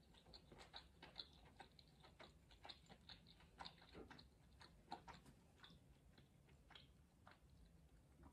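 Faint chewing of stewed potatoes and mushrooms: soft, irregular wet mouth clicks.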